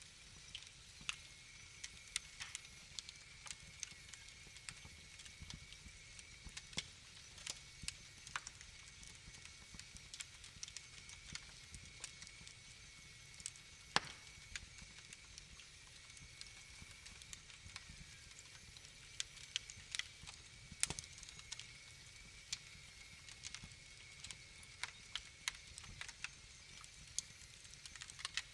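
Wood fire crackling in a fireplace: irregular sharp pops and snaps over a faint steady hiss, with a couple of louder pops.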